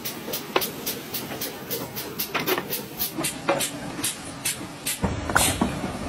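Regular mechanical clicking, about four sharp clicks a second, over a steady low noise. About five seconds in it gives way to a denser, noisier clatter.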